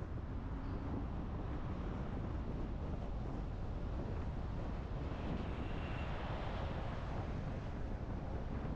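Car driving: steady road and tyre noise with wind buffeting the microphone. A louder rush swells and fades about five to seven seconds in.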